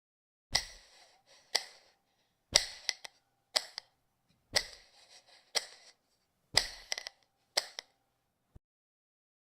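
A series of sharp clicks, about one a second, alternating a heavier click with a lighter one.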